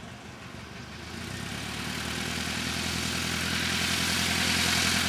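Cessna 152's four-cylinder Lycoming engine and propeller running at low taxi power, growing steadily louder from about a second in as the plane taxis up close.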